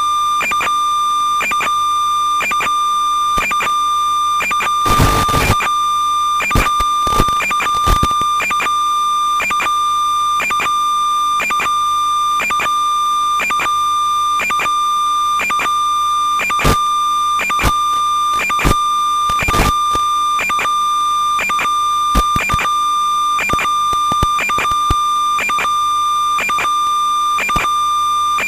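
Electronic interference on the audio of an analog FPV video link recorded by the DVR: a steady high whine with overtones, broken by irregular crackling clicks. A longer burst of crackle comes about five seconds in.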